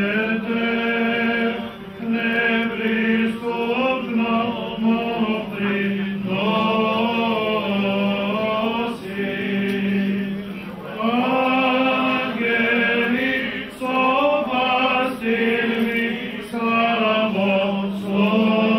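Orthodox clergy chanting a liturgical hymn: men's voices sing a melody over a steady low held note, phrase by phrase with short pauses between.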